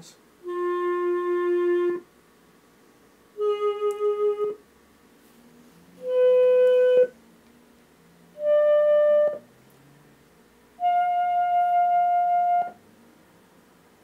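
Recorded clarinet multi-samples from the Fairlight sound library, played one note at a time: five sustained notes, each higher than the last, with short gaps between them. The second note has a pulsing vibrato.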